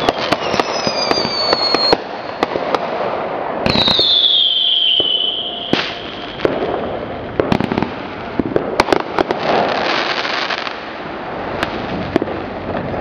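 Fireworks going off: a rapid, irregular string of sharp bangs and crackles. Two whistles fall in pitch, one at the start and a longer one from about four seconds in that cuts off with a loud crack.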